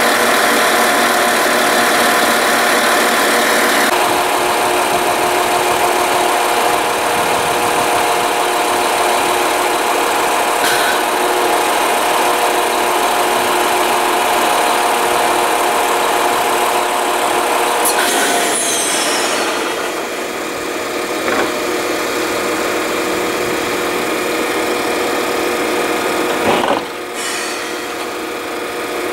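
Stationary passenger train's underfloor equipment running: a steady mechanical hum with several held tones over a hiss. A couple of short knocks come through, about two-thirds of the way in and near the end.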